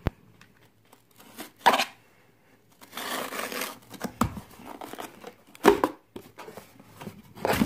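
Packing tape on a cardboard box being poked through and torn off as the flap is pulled open. Short scrapes, then a longer tearing rasp about three seconds in, then knocks of the cardboard flaps, the loudest a little before the end.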